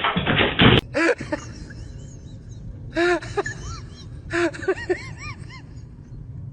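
Quick rhythmic knocking for the first moment, then a pet's short whimpering cries, each rising and falling in pitch, coming in three small clusters.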